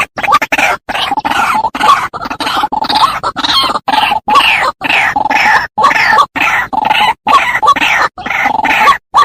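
White-breasted waterhen calling: a continuous run of short, falling 'ruak' notes repeated about twice a second, broken by brief silent gaps.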